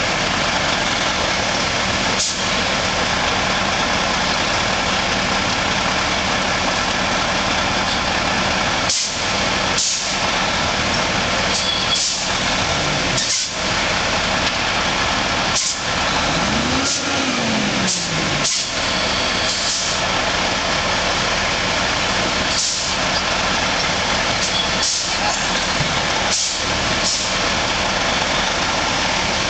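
Heavy diesel engines of a dump truck and a wheel loader running steadily as the truck creeps forward with its bed raised, unloading clay. About halfway through, an engine revs up and back down once, and sharp knocks come at irregular moments.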